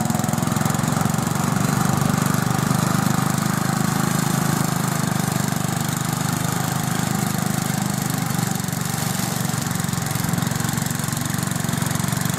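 Wheel Horse garden tractor's engine running steadily with the mower deck engaged, cutting long grass as it drives along.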